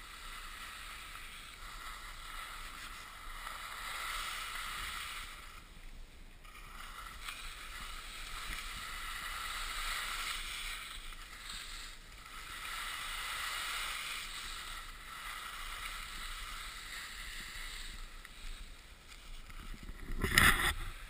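Skis sliding on packed snow: a hissing scrape that swells and fades every few seconds with each turn. Near the end, loud bumps and rumble break in.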